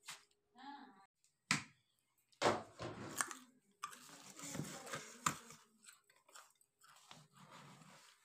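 Steel bowl scooping dry flattened rice (chura) out of a plastic bucket: crunchy rustling of the flakes with a few sharp knocks and clinks of the bowl, busiest in the middle.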